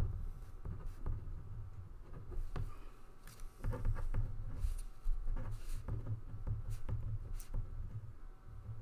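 Computer keyboard being typed on: irregular light clicks and taps over a low steady room hum.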